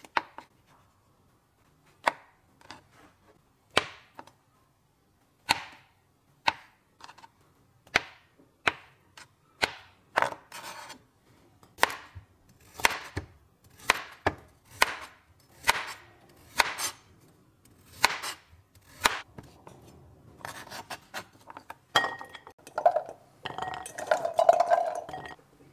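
Chef's knife cutting shiitake mushrooms and a carrot on a cutting board: sharp single chops, spaced out at first, then coming about once a second. Near the end, a clatter of peeled chestnuts tipped from a bowl into a ceramic dish.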